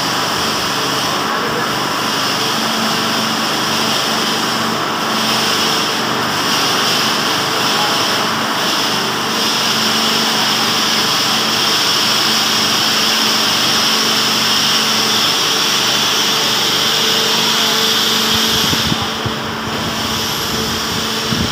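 Steady machine noise: a constant hum with a strong hiss over it, which dips briefly near the end.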